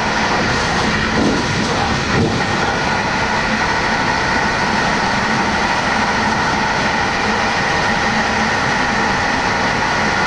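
Train running at speed, heard from its front cab: a steady rumble of wheels on rail with a steady high whine over it, and a couple of brief bumps about one to two seconds in.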